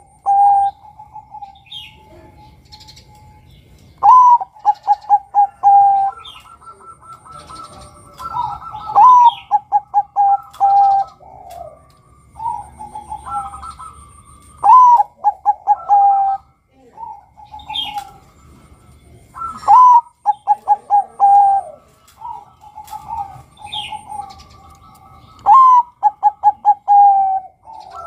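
Zebra dove (Bangkok-type perkutut) cooing. It repeats its song phrase about every five seconds, each a rising first note, a quick run of short staccato coos and a longer held coo at the end.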